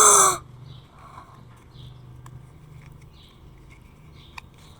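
A boy's short, loud cry of "ah!" right at the start, its pitch rising then falling. After it comes a quiet stretch with a low steady hum, a few faint sharp clicks and faint high chirps about once a second.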